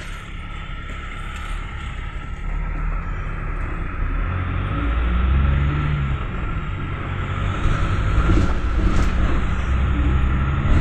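Cabin sound of a GAZ Gazelle Next minibus on the move: engine and road rumble that grows louder about halfway through, with a few short rattles near the end.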